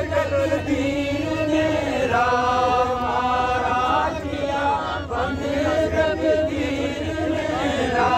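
Men's voices singing a song in long held phrases, the notes drawn out and bending from one pitch to the next.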